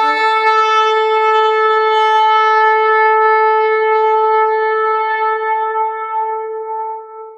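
Shofar blown in one long, steady blast, a single held note that fades out near the end.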